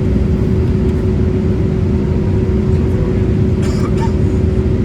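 Steady cabin noise aboard a Boeing 787-8: an even, loud low rumble of the engines and airflow, with a constant hum over it.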